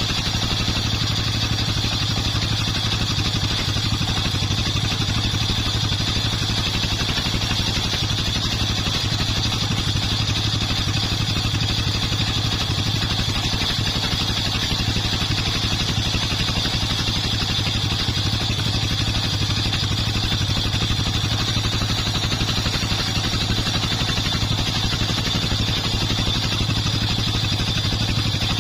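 Homemade circular sawmill rig running steadily: its engine drone with a constant high whine, unchanging throughout.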